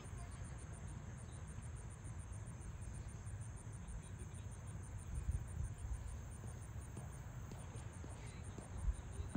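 Insects chirping in a fast, even, high-pitched pulse that keeps on steadily, over a low rumble, with a brief louder low thump near the end.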